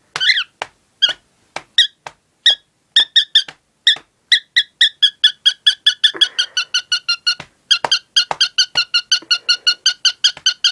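Cockatiel giving a long run of short, same-pitched chirps, slow at first and quickening to a fast steady patter about four seconds in.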